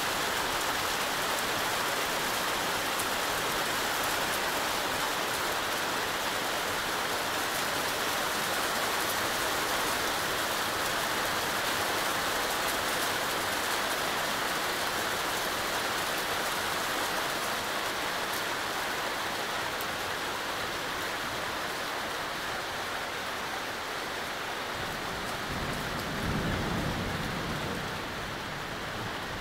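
Heavy thunderstorm rain pouring down in a steady hiss, with a low rumble of thunder near the end.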